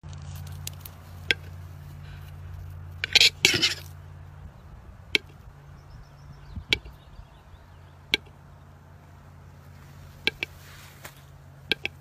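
Male western capercaillie giving its display song: sharp, dry clicks spaced a second or more apart, with a louder cluster of them about three seconds in. A low steady hum lies under the first few seconds.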